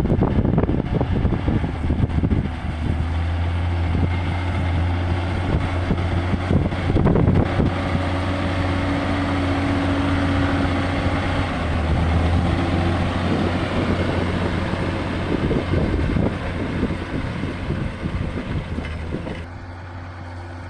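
Diesel engine of a large John Deere tractor running steadily in the field, a deep constant engine note with noise over it; it turns quieter and duller about a second before the end.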